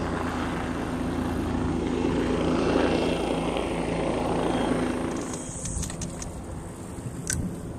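Helicopter flying low nearby, its rotor and engine noise loudest about three seconds in, then fading away after about five seconds. A few sharp clicks follow near the end.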